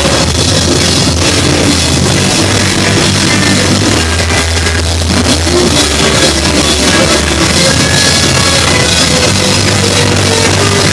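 Rock band playing live, loud and steady, with a drum kit driving the beat; an instrumental stretch without singing.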